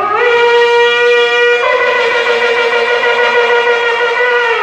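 Shofar blown in one long held note that scoops up slightly as it starts, changes tone about a second and a half in, and stops abruptly.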